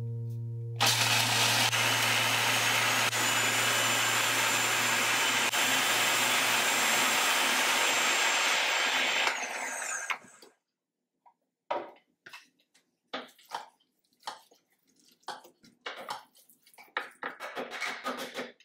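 Cuisinart food processor motor starts about a second in and runs steadily for about eight seconds, grinding nuts, then winds down. After that come scattered short knocks and rattles.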